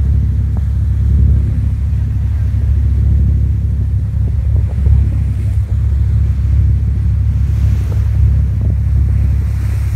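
Boat engine running steadily, heard on board the moving boat as a deep, even rumble, with water and wind noise over it.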